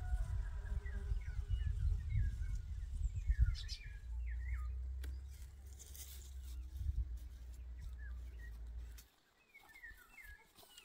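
Small birds chirping and singing in short phrases over a low, uneven rumble of wind on the microphone. The rumble cuts out about nine seconds in, leaving the birds alone.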